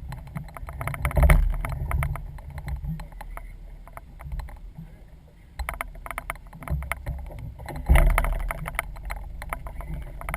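Small fishing boat on the water: a surging low rumble with two spells of rapid knocking and clatter, one about a second in and one near the end.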